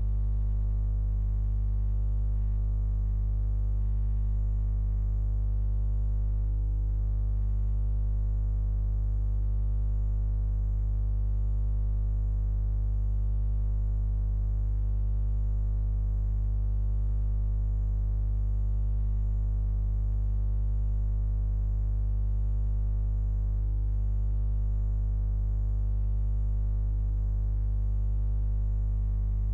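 Steady low electrical hum with a ladder of overtones, unchanging throughout: mains hum picked up in the recording chain.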